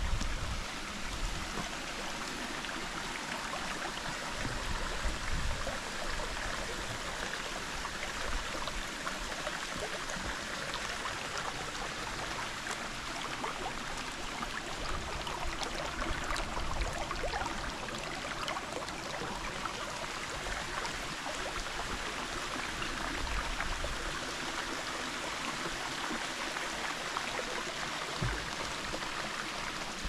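Shallow stream trickling over rock slabs and stones, a steady rush of running water.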